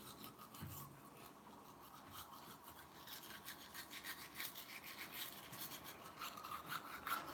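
Manual toothbrush scrubbing teeth: faint, quick back-and-forth bristle strokes that grow a little louder towards the end.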